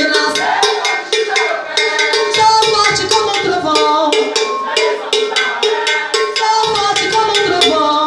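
Maracatu group playing: drums and a bell in a steady, fast beat, with voices singing over them.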